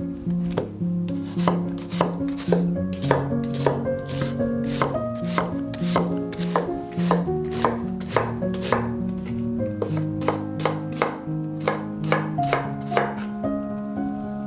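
Chef's knife chopping a peeled onion on a wooden cutting board: a quick run of sharp knocks as the blade strikes the board, several a second, thinning out near the end. Soft background music plays underneath.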